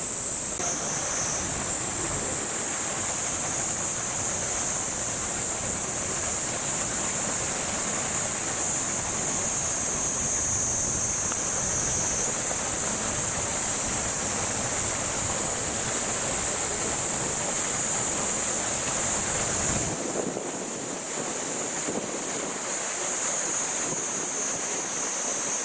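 Wind buffeting the microphone as a broad rumbling rush, easing off about 20 seconds in, under a steady high-pitched drone of a cicada chorus.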